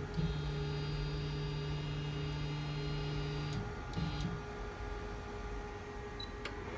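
Small electric motor in the BGA IC mounting machine humming steadily for about three and a half seconds, then in two short bursts.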